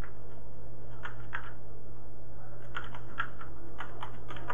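Typing on a computer keyboard: a couple of keystrokes about a second in, then a quicker run of keystrokes through the second half, over a steady low hum.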